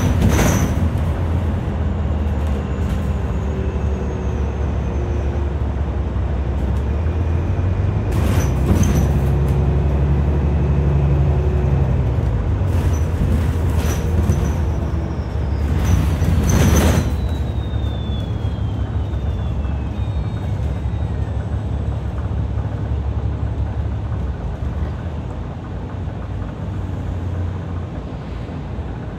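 City bus running, heard from inside the cabin: a steady low engine rumble, broken by three short loud bursts of noise about eight seconds apart, with a faint falling whine midway through. The rumble eases off near the end.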